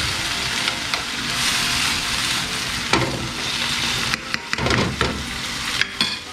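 Chopped vegetables sizzling in oil in a nonstick frying pan, stirred with a metal spoon that scrapes and knocks against the pan a few times.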